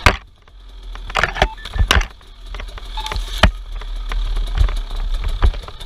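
An off-road vehicle running over rough ground, with a steady low rumble and repeated sharp knocks and bangs, the loudest right at the start.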